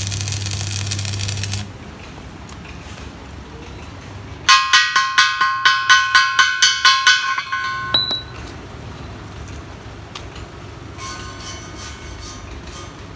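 Arc welding on a steel tractor wheel plate crackles with a low hum and stops about a second and a half in. A few seconds later a steel tool strikes the fresh weld about four times a second for some three seconds, each blow ringing the plate, chipping off the slag; a few fainter ringing taps follow near the end.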